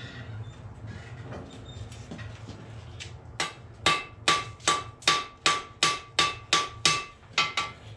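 Blacksmith's hand hammer striking hot steel on an anvil: a steady run of about a dozen blows, two to three a second, starting about three and a half seconds in. Each blow has a bright ring from the anvil.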